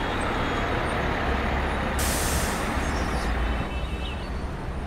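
A steady low rumble, with a sudden high hiss about two seconds in that lasts just over a second.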